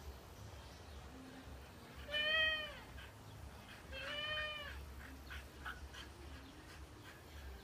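Two drawn-out, meow-like animal calls about two seconds apart, each rising then falling in pitch, the first louder.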